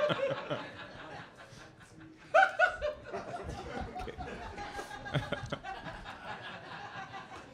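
Comedy-club audience laughing after a roast joke's punchline, with a loud burst of laughter about two and a half seconds in that then tails off.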